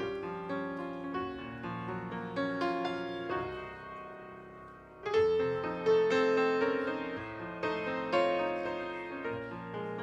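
Grand piano playing a slow, tender introduction to a sung hymn, chords struck and left to ring. The playing thins out and fades about four seconds in, then a louder chord comes in about a second later.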